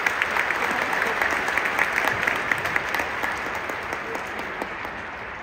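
Large stadium crowd applauding. The clapping is dense at first and gradually thins and fades over the last couple of seconds.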